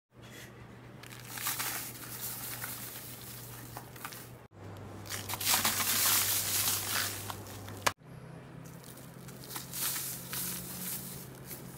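A moulded sand-cement cup crushed and crumbled by hand: gritty crunching and crackling as it breaks apart, with sand trickling and pouring down into a plastic-lined bucket. It comes in three stretches with abrupt cuts about 4.5 and 8 seconds in, loudest in the middle stretch.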